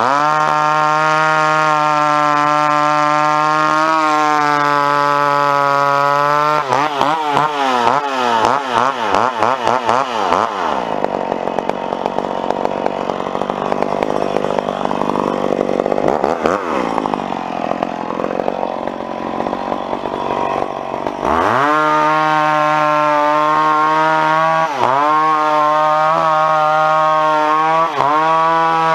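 Vintage McCulloch two-stroke chainsaw bucking a log at full throttle, then revved up and down several times. It drops off full throttle for about ten seconds in the middle, then runs flat out again with brief dips in revs as the cut goes on.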